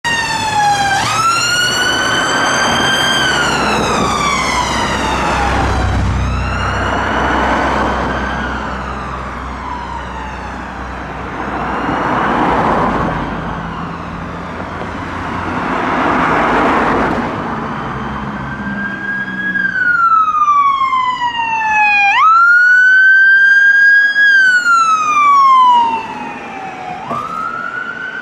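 Emergency vehicle's wail siren, each cycle a quick rise in pitch then a slow fall, about one every five seconds. Engine rumble and road noise rise under it in the middle, then the siren stands alone and clearer near the end.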